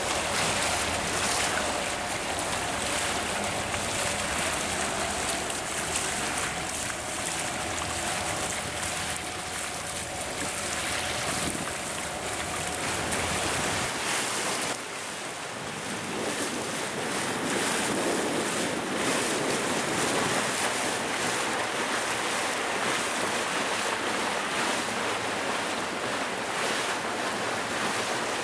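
Water rushing along the hull of a moving motorboat, with wind buffeting the microphone. A steady engine hum runs under it in the first half and drops out abruptly about halfway, leaving only the water and wind.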